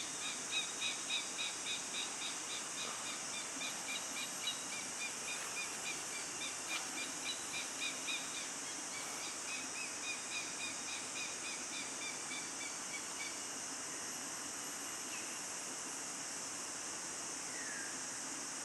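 A bird calling a long series of short, high, evenly spaced notes, about two a second, that fade and stop about two-thirds of the way through. A steady high-pitched hiss of forest background runs beneath.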